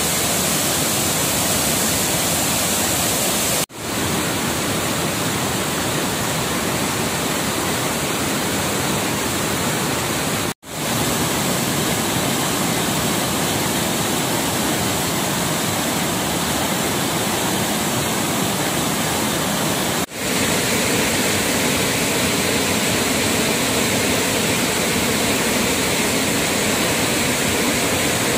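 Flood-swollen waterfall and the muddy torrent below it rushing: a loud, steady, even water noise. It drops out briefly three times where the recording is cut.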